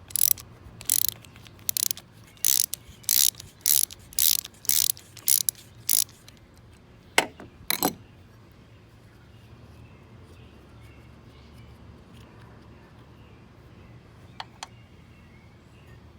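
Socket ratchet clicking through about ten quick strokes as it loosens the screw under a lawnmower carburetor's float bowl, followed by two sharp knocks.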